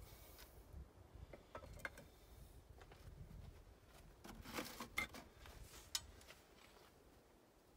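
Faint, mostly quiet: a few small clicks, then a short rustling clatter with sharper clicks about four and a half to six seconds in, as a red-hot raku pot is handled with metal tongs and set down into a metal reduction bin.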